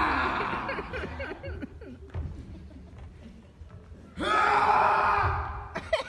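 A theatre audience laughing in two loud waves: one at the start that fades over about a second and a half, and another from about four seconds in that lasts nearly two seconds.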